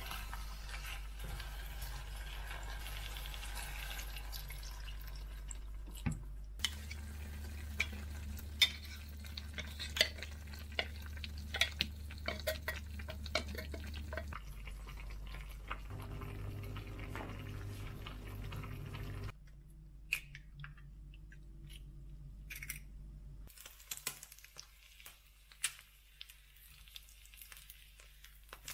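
Small clicks and clinks of utensils and dishes over a steady low hum, in several short clips cut together, the background changing abruptly at each cut.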